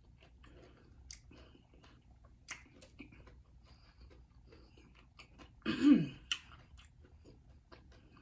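Faint, crunchy chewing of a Takis-stuffed jalapeño with scattered small clicks, and one loud, short throat-clearing with a falling pitch about six seconds in.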